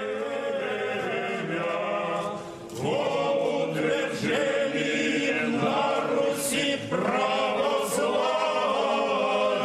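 Orthodox monks chanting a hymn a cappella, held sung notes with a new phrase entering about three seconds in and another about seven seconds in.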